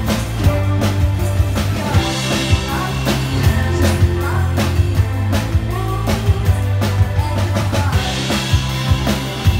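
A live rock band playing: a woman sings over drum kit and electric bass with a steady beat, and the cymbals open up briefly about two seconds in and again near the end.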